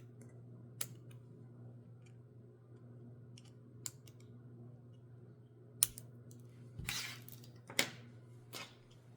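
Needle-nose pliers pulling and snapping the small middle piece out of 3D-printed PLA hanger connectors: several sharp clicks and snaps, spaced irregularly a second or more apart, over a steady low hum.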